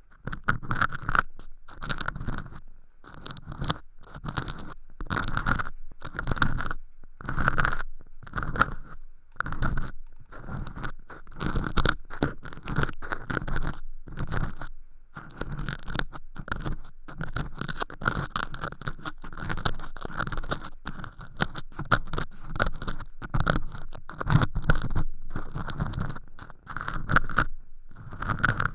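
Earpick scratching and scraping thin, crispy flakes of fake earwax inside a transparent ear-canal tube, close against a binaural microphone, in a run of irregular strokes with a crackly, crunching edge.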